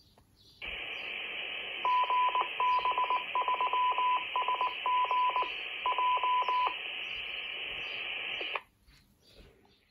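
Handheld radio's speaker playing a repeater's reply: a steady hiss of the opened FM channel with a Morse-code ident in a single high beeping tone over its middle, then the carrier cuts off suddenly near the end. The repeater has been opened, so it is being reached.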